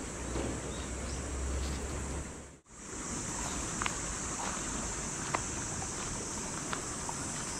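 Outdoor riverside ambience: a steady high insect drone, with wind rumbling on the microphone for the first couple of seconds. The sound drops out briefly about two and a half seconds in, then the drone carries on with a few short, high chirps.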